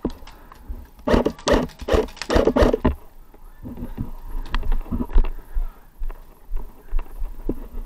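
Footsteps on gravel and packed dirt: a quick run of heavy steps for about two seconds, then slower, scattered steps.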